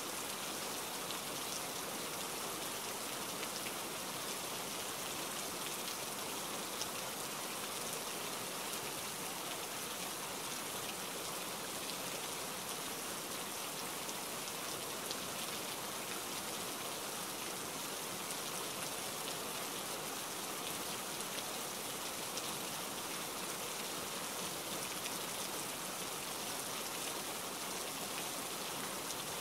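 Steady rain, an even hiss that does not change.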